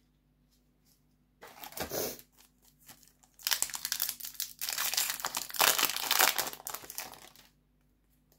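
Foil trading-card booster pack being torn open: a brief crinkle about a second and a half in, then several seconds of dense crinkling and tearing as the wrapper is ripped apart.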